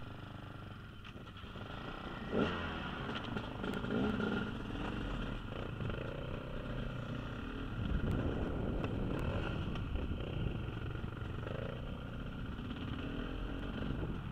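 Dirt bike engine running as the bike pulls off and rides at low speed, the revs rising and falling, with a sharp throttle blip about two and a half seconds in.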